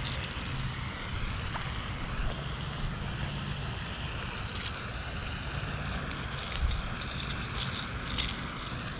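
Close handling noise as a small bass is held and a jerkbait is worked out of its mouth: a few short clicks and rattles about halfway and again near the end, and a soft thump, over a steady low hum and outdoor hiss.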